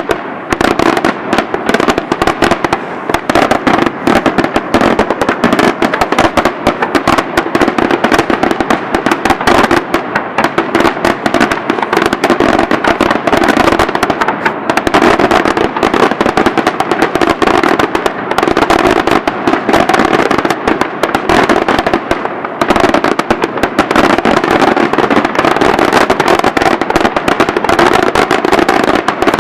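A daytime fireworks barrage: aerial shells bursting into dense, rapid volleys of bangs and crackling reports with almost no let-up. There is a brief dip about three-quarters through.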